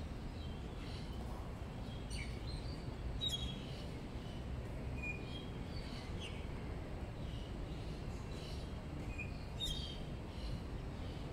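Steady low background rumble with scattered short bird chirps and tweets, plus a few sharp ticks.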